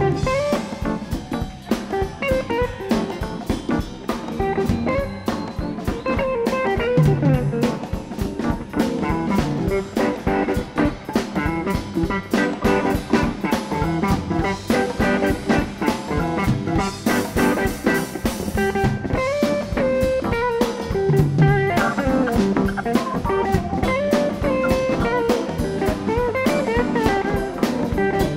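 Live blues-rock band playing an instrumental passage: an electric guitar lead with sliding notes over a drum kit and bass.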